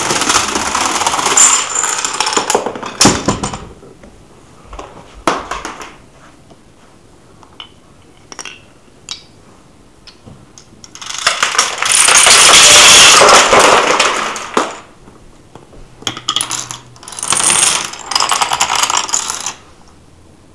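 Clatter of a homemade Rube Goldberg chain reaction: CD cases and dominoes toppling onto one another in quick succession, and a marble rolling along its ramps. Three long bursts of clatter come with scattered single clicks between them.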